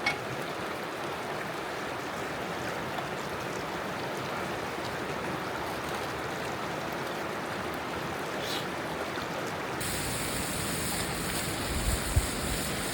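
Steady rushing of a river's flowing water. About ten seconds in the sound changes abruptly and gets a brighter hiss, and near the end low gusts of wind buffet the microphone.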